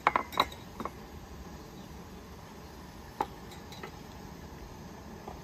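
Light knocks and clinks of bowls and plates being handled on a low wooden table: a quick cluster in the first second and a single knock a little past three seconds in, over a steady faint background hiss.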